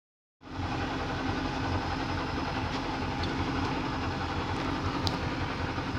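Motorboat engine running steadily with the boat under way, over a steady rush of wind and water noise.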